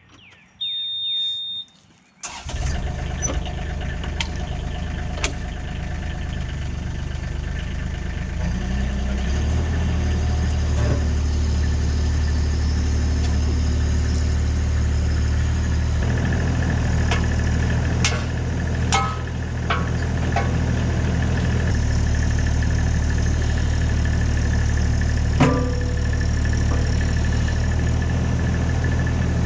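A short electronic beep, then a compact diesel machine's engine starts about two seconds in and idles. About eight seconds in the throttle is raised and it runs steadily at higher speed, with a few metallic clanks later on.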